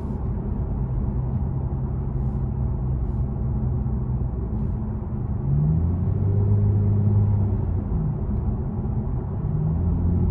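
Lexus GS 350's V6 engine through a Borla S-Type axle-back exhaust, heard from inside the cabin while cruising at low revs: a steady low exhaust hum over road noise. It swells louder about halfway through and again near the end.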